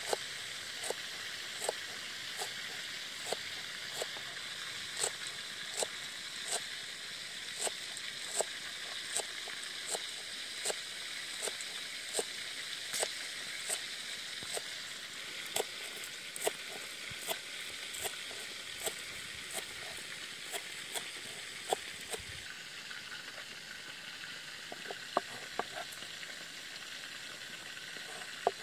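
Chef's knife chopping green onions on a wooden cutting board: a sharp knock a little faster than one a second, quicker for a while in the middle, then only a few last taps after about three-quarters of the way. A steady hiss runs underneath.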